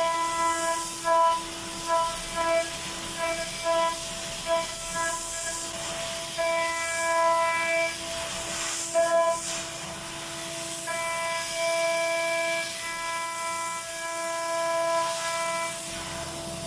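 CNC router spindle at 20,000 rpm milling 6061 aluminium with a quarter-inch single-flute O-flute end mill in a light, conservative cut. It gives a steady whine whose higher overtones sound and drop out again and again as the cutter moves in and out of the cut, over a steady hiss.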